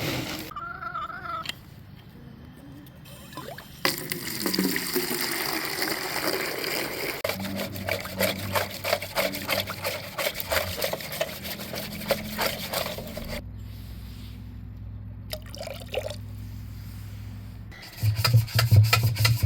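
Chicken feed hopper being filled: a rushing pour that starts about four seconds in and runs for roughly nine seconds.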